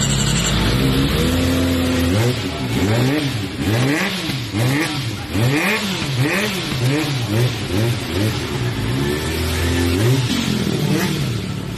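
Kawasaki Ninja ZX-25R's 250 cc inline-four engine running steadily, then revved in quick throttle blips, the pitch rising and falling over and over. The revs briefly hold steady before the blipping resumes near the end.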